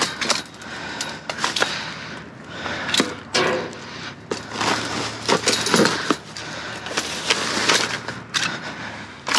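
Rummaging through discarded items in a dumpster: an uneven run of knocks, clinks and rustling as things are picked up, moved and dropped.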